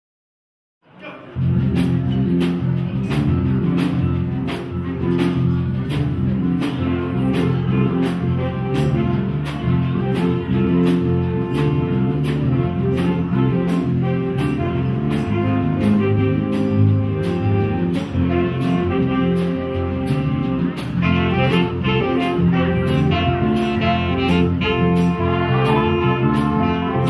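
High school jazz band playing live, saxophones and brass over electric guitar, bass, keyboard and drums keeping a steady beat. The music starts about a second in after a brief silence.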